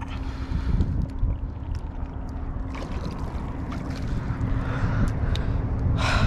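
Wind buffeting the microphone as a steady low rumble, with a faint constant hum underneath and a few light clicks.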